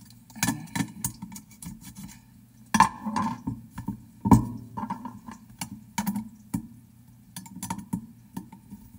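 Handling noise from a Belimo LF24-SR damper actuator's case being turned and pressed on a wooden workbench: irregular clicks and light knocks, with two louder knocks about three and four seconds in. A screwdriver goes into a hole in the actuator's metal plate near the end.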